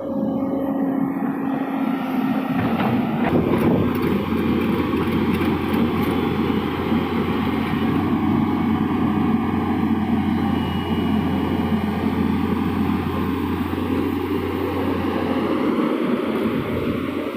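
Heavy diesel engine of an excavator or dump truck running steadily.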